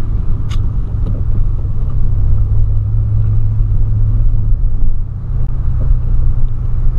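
Volkswagen Polo driving, heard from inside the cabin: a steady low rumble of engine and road noise that swells slightly in the middle, with one short click about half a second in.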